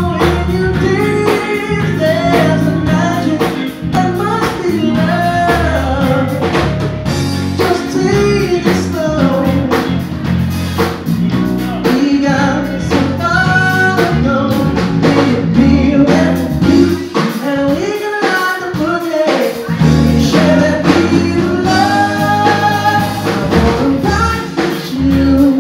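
Live band playing: a man singing lead over electric guitar, bass guitar and drum kit. The bass drops away for a couple of seconds about two-thirds of the way through.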